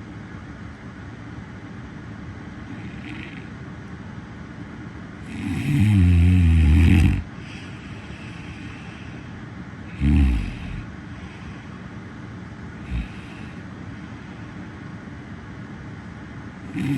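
A person snoring: a long, loud snore of about two seconds about five seconds in, a shorter one around ten seconds, and another starting near the end, over a steady background hiss.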